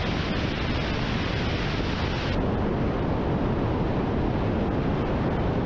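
Attack helicopter in flight, heard from a camera mounted on the outside of the fuselage: a loud, steady roar of rushing wind mixed with rotor and engine noise. The hiss turns slightly duller about two and a half seconds in.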